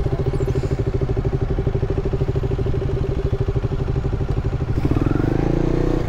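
Motorcycle engine running steadily with an even, fast pulsing beat; its note changes briefly near the end.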